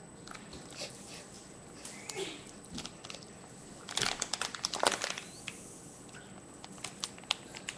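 Empty Capri Sun foil drink pouch crinkling as it is squeezed in the hands and sucked on through its straw, with denser bursts of crackling about four and five seconds in.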